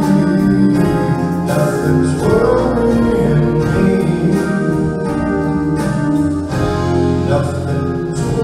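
Live band playing a song: drum kit with cymbals, electric guitar and keyboard under a male singer's voice.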